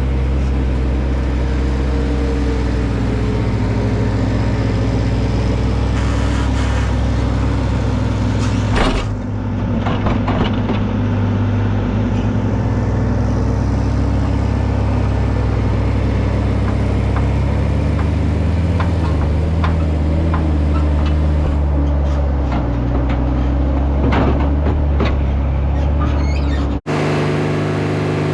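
Engine of farm machinery running steadily under load, with a few knocks and clunks along the way. Near the end the sound cuts abruptly to a different steady engine note.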